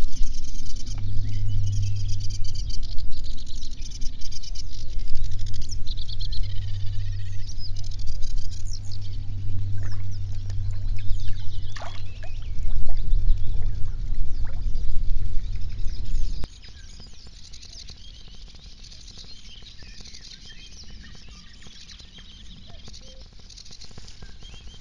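Several birds singing together in a morning chorus over a low steady hum. About two-thirds of the way through, the sound drops abruptly and only fainter birdsong goes on.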